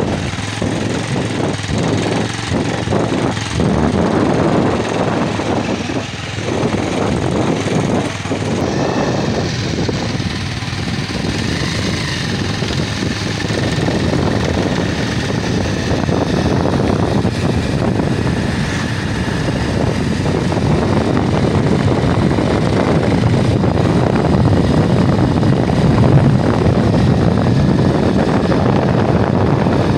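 A vehicle driving along a mountain road: steady engine and road noise with rushing wind on the microphone.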